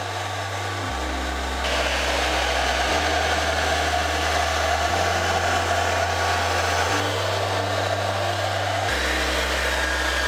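Hand-held electric hair dryer blowing steadily, with a loud airflow noise that gets louder a little under two seconds in.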